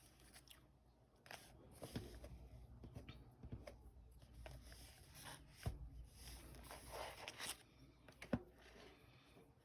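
Faint rustling of paper pages and thread being handled during hand-sewing of a journal binding, with scattered small taps and clicks; the sharpest tick comes about eight seconds in.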